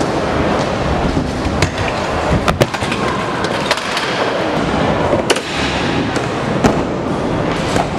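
Skatepark noise: scooter wheels rolling over wooden ramps and concrete, broken by several sharp clacks of decks and wheels hitting the ground and rails, the loudest about two and a half seconds in and again near seven seconds.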